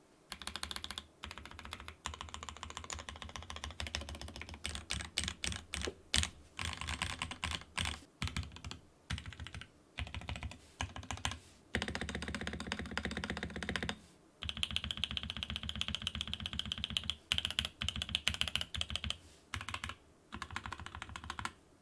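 Sam S80 top-mount mechanical keyboard, run with no bottom cover, being typed on in quick bursts of key clicks with short pauses between them.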